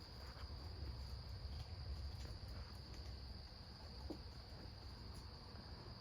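Night chorus of crickets: a steady, faint, high-pitched trill that does not change, over a low rumble.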